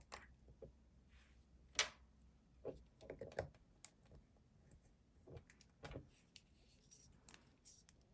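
Faint, scattered clicks and taps of a small spray bottle and its packaging being handled, with a sharper click about two seconds in.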